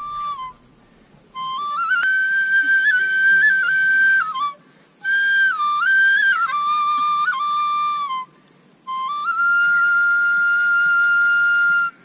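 A simple tune played on a small whistle held at the mouth, in three phrases with short breaks between them. The last phrase ends in one long held note that cuts off suddenly.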